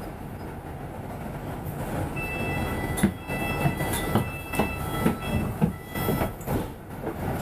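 Double-decker bus heard from inside on the upper deck: running rumble with knocks and rattles. From about two seconds in, a steady high whine cuts in and out several times as the bus moves off.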